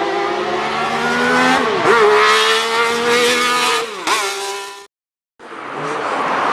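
A car engine held at high revs, its pitch dipping sharply and climbing back twice, as in quick gear changes, then cutting off suddenly. After half a second of silence, a steady outdoor rush of engine and road noise starts.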